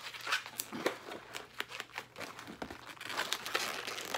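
Latex modelling balloons being handled and twisted together: irregular rubbing, crinkling squeaks and small clicks, getting busier near the end.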